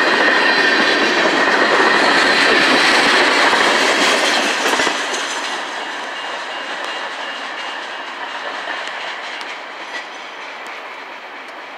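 Tank cars of a CSX manifest freight train rolling past close by: steel wheels clacking over rail joints, with a faint high wheel squeal. About five seconds in the sound drops to a quieter, thinner rolling noise as the train moves away.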